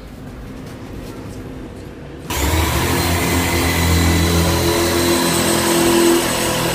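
Quiet background hiss, then an electric drill starts suddenly a little over two seconds in and runs steadily, its bit boring into a thick laminated particle-board tabletop.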